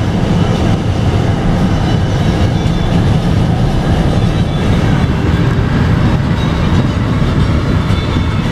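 Steady rumble of a car driving at highway speed, heard from inside the car: road and wind noise, loud and unchanging.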